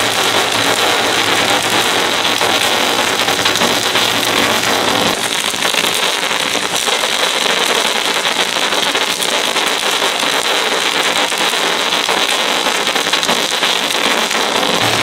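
Stick-welding arc of a giant 3/4-inch Cor-Met F25 electrode burning at about 1000 amps: a loud, steady, unbroken crackle like frying.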